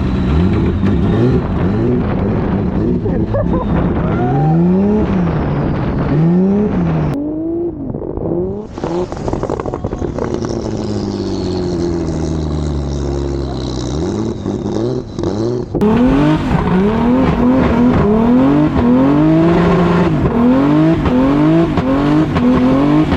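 Turbocharged BMW E46 M3 engine revving hard while drifting, its pitch climbing and dropping over and over as the throttle is worked, in quick rev swings about once a second in the last part.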